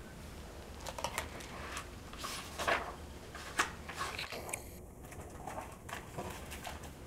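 Hardcover picture book being opened and its pages handled and turned: scattered soft taps and paper rustles, the fullest a little under halfway through.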